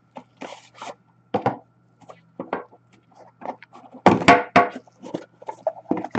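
Cardboard hockey card box being opened and handled: a series of taps, knocks and scrapes, the loudest a longer scrape about four seconds in.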